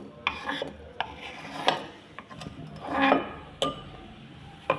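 Cut pieces of lemongrass being put into a bowl: a string of light clatters and knocks, the largest about three seconds in.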